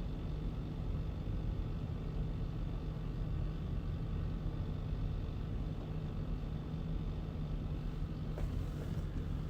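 Steady low mechanical hum of running machinery, with a faint click near the end.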